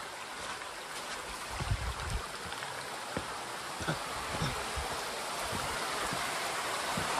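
Small mountain stream running and splashing over rocks, growing steadily louder, with a few soft low thumps in the first half.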